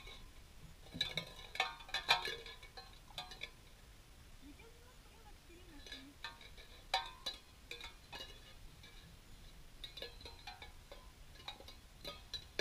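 Empty tin cans on a rope clinking and rattling against each other in three bouts of sharp metallic clinks, about a second in, around six to seven seconds in, and near the end.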